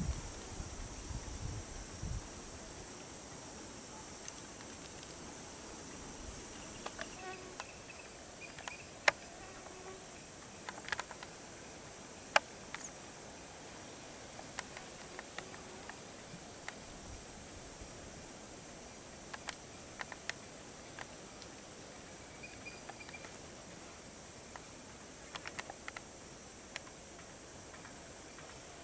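Steady, high-pitched drone of an insect chorus, with a dozen or so scattered sharp clicks and a few faint chirps. A low rumble dies away in the first couple of seconds.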